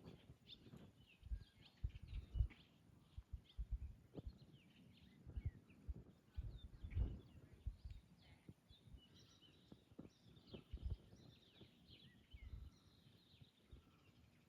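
Faint outdoor ambience of birds chirping and calling, many short chirps that grow busier in the second half, over irregular low rumbles.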